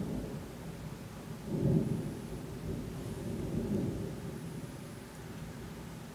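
Rolling thunder rumbling deep and long, swelling to a louder peak about a second and a half in, then slowly dying away, with rain falling underneath.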